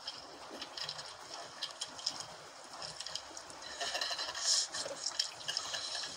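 Sea water lapping and splashing against the hull of a small outrigger boat, irregular and crackly, with a louder splash about four and a half seconds in.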